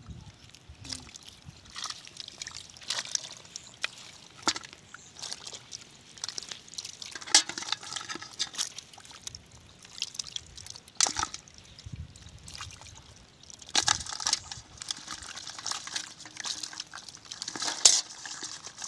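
Hands and fish splashing and squelching in a shallow, water-filled mud hole as live fish are grabbed out of it, with irregular sharp splashes and sloshes throughout, the loudest about 7, 11, 14 and 18 seconds in.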